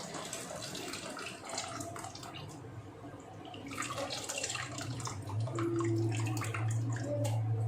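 Liquid pouring and splashing into a vessel: strained tamarind water being added to the ground herb paste for rasam. About halfway through a steady low hum with a few held higher tones comes in and grows louder.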